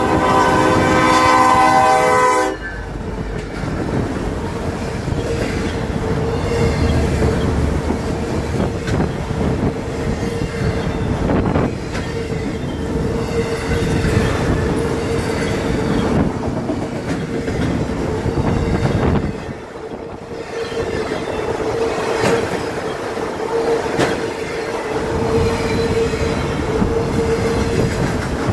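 Union Pacific freight locomotive's air horn sounding a several-note chord at the grade crossing, cutting off about two and a half seconds in. Then a long train of autorack cars rolls by with a steady clickety-clack of wheels over the rail joints and a steady whine.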